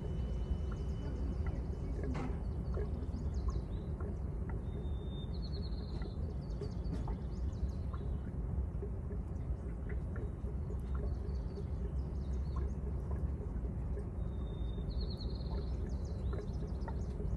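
A steady low rumble of outdoor background noise, with a songbird singing a short trilled phrase about five seconds in and again near fifteen seconds, and a few faint ticks.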